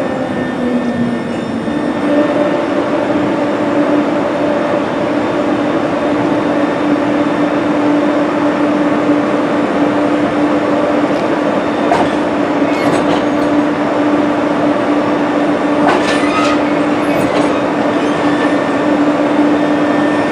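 Renfe class 253 electric locomotive hauling hopper wagons at walking pace, with a steady electric hum that dips slightly in pitch and recovers in the first couple of seconds. A few sharp clicks and brief high wheel squeals come about twelve seconds in and again around sixteen to seventeen seconds in.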